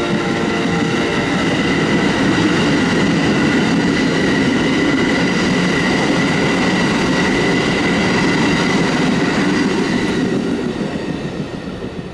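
Amtrak passenger train led by two Siemens ALC-42 Charger locomotives: the horn's chord cuts off about a second in, then the cars roll past with loud wheel and rail noise and a steady high whine. The sound dies away near the end as the train moves off.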